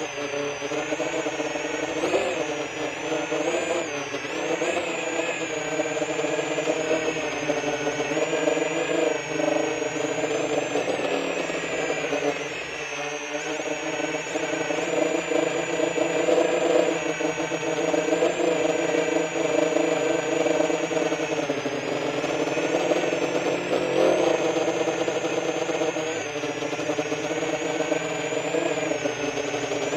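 The brushless motors and propellers of a 10-inch QAV-R 2 XL freestyle FPV quadcopter buzz and whine in flight, picked up by the onboard DJI Digital Air Unit. The pitch rises and falls with throttle, with a short let-off about 13 seconds in.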